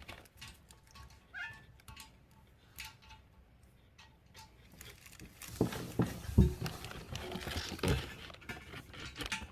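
Small clicks and clinks of toilet bolts, washers and nuts being handled and fitted, then several heavier knocks and thumps of parts being set and bumped together from about halfway through.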